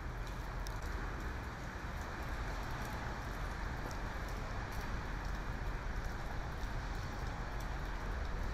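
Steady rain falling on wet pavement, with scattered sharp drip ticks and a low steady rumble underneath.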